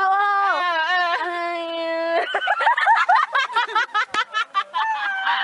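A girl's voice holds one long high note, dipping in pitch once, for about two seconds, then breaks into rapid giggling laughter.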